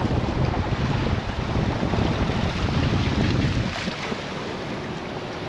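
Wind buffeting the microphone over the rush of choppy sea around a sailing yacht's hull: a steady noise with a heavy, fluttering low rumble.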